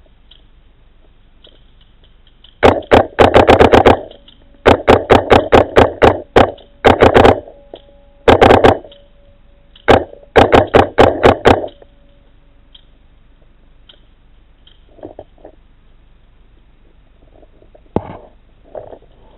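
Paintball marker firing in rapid strings of sharp pops, several shots a second, in four bursts over about nine seconds. A few fainter pops follow near the end.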